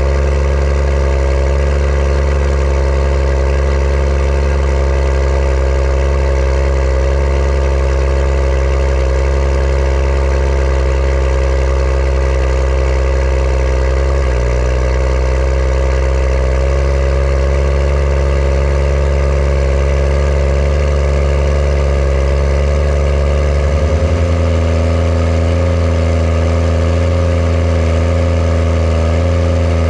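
Case IH Puma 225 CVX tractor's six-cylinder diesel engine running steadily, heard close to its exhaust stack. The engine note shifts slightly about halfway through and changes again about four-fifths of the way in.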